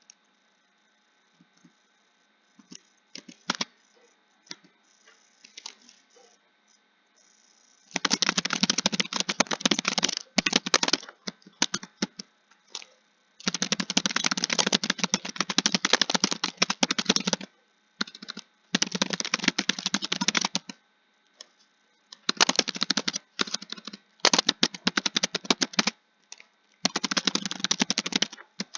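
Computer keyboard typing. The first several seconds are nearly quiet with only a few scattered key clicks, then fast runs of keystrokes start about eight seconds in, each lasting a few seconds, with short pauses between them.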